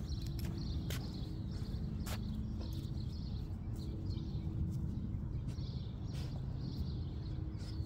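Outdoor ambience: a steady low rumble with a faint hum, and small birds chirping again and again throughout, plus a few faint clicks.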